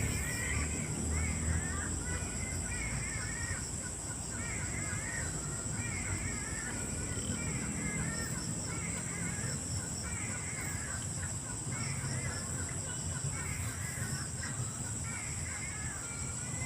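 A bird calling over and over in short chattering phrases, roughly one to two a second, without stopping. A steady high-pitched hiss runs underneath.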